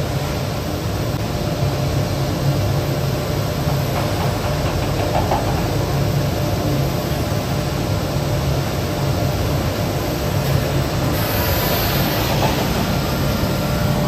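Steady low roar of a running rotary drum carbonization furnace, its bottom-chamber burner fire burning the furnace's own recycled gas. A brief hiss rises over it about eleven seconds in.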